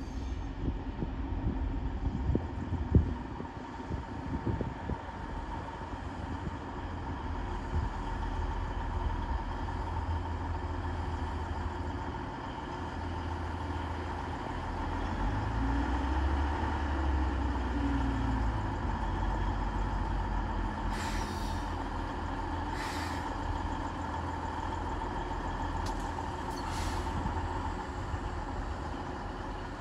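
DB Class 612 diesel multiple unit running slowly and drawing to a stop, its diesel engines humming steadily. There are a few sharp knocks of wheels over rail joints a few seconds in, and three short hisses of air from the brakes in the last third.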